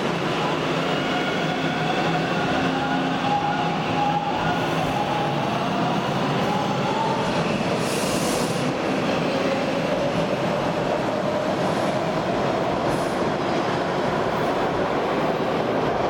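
Bombardier T1 subway train pulling out of the station. Its electric traction motors whine, rising in pitch as it gathers speed, over a steady rumble and rattle of steel wheels on rail.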